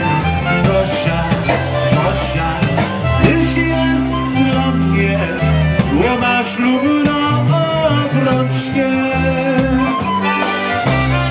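Live polka band playing an instrumental passage without vocals: accordion, electric bass and drum kit keeping a steady beat with regular cymbal strikes.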